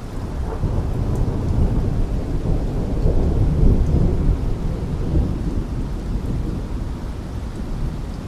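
A long roll of thunder over steady rain: the deep rumble swells from about a second in, peaks around the middle and slowly fades away.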